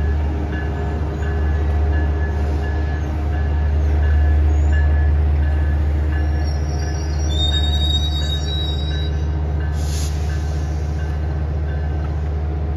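Metrolink diesel-hauled bi-level passenger train rolling slowly through the station, with a steady low engine rumble and a bell ringing about two to three times a second. Thin, high wheel squeal comes in about halfway through, followed by a short sharp clack.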